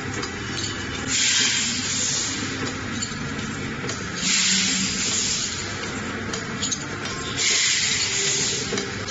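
Autompack ATM-240C volumetric-cup vertical packing machine running. A high hiss about a second long comes three times, roughly every three seconds, over a steady low hum, with light clicks between the hisses.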